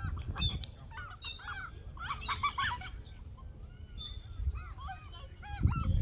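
A flock of gulls calling: many short, arching cries overlapping one another, busiest about two seconds in and again near the end.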